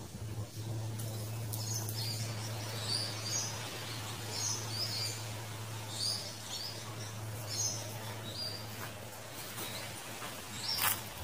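Birds chirping, short high chirps repeating about once a second, over a steady low hum. Near the end come a couple of brief scrapes of a garden rake on the ground.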